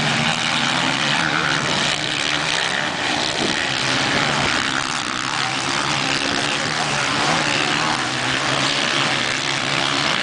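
Several motocross bikes' engines revving as they race around the dirt track, a dense, steady buzz that never drops away.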